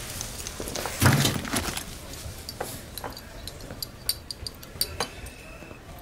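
Espresso cups and cutlery clinking on a café counter: a dull thud about a second in, then a string of small, sharp clinks.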